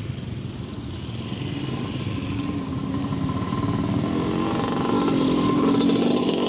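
Motor scooters and motorcycles riding slowly past at low revs, their engines growing louder over the second half as they approach.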